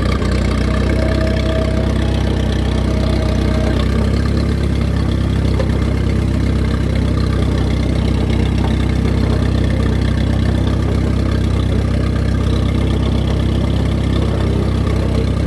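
1953 Allis-Chalmers WD tractor's four-cylinder engine running steadily at low revs.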